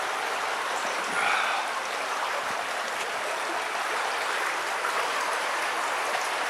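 Steady rush of water running through an underground drain.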